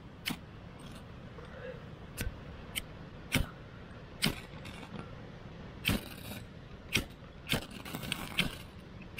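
Ferrocerium rod (fire steel) scraped with a flat steel striker to throw sparks into tinder: about a dozen short, sharp rasping strikes at uneven intervals roughly a second apart, with a quick cluster of strikes near the end.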